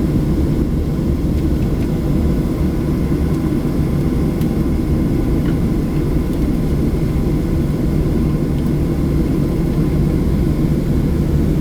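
Steady low drone of an airplane's engines and rushing air, heard from inside the passenger cabin in flight, with a faint steady hum above it.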